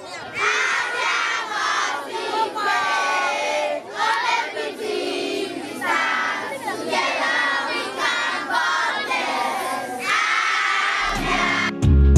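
A large crowd of schoolchildren shouting and chanting together in repeated loud bursts with short breaks between. Music with a low bass line comes in about a second before the end.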